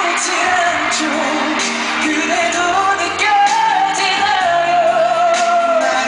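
Live K-pop boy-band performance: a male voice sings a long, held melody over the band's backing track, amplified through the concert sound system. The melody climbs a little past the middle and is held until near the end.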